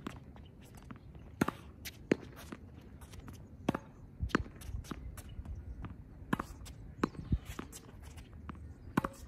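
Tennis ball being hit with a racket against a practice wall and bouncing on a hard court: a run of sharp pops and smacks at uneven intervals, a few every couple of seconds, with softer footsteps on the court between them.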